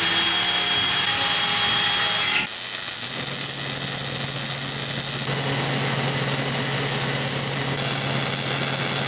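A handheld power tool whines for the first two and a half seconds. It cuts to an arc welder crackling steadily with a low hum as steel chassis tube is welded.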